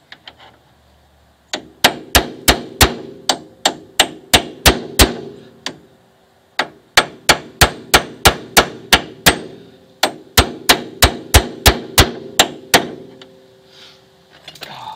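A hammer strikes an old wheel bearing used as a driver, tapping a new rear wheel bearing into the hub carrier of a Mercedes R170 SLK. The blows are even, metal on metal, about three a second, in three runs with short pauses between them, and each blow rings briefly.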